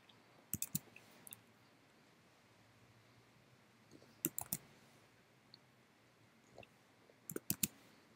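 Computer mouse clicking in small clusters of sharp clicks with quiet gaps between: a pair about half a second in, another pair around four seconds in, and a quick run of three or four near the end.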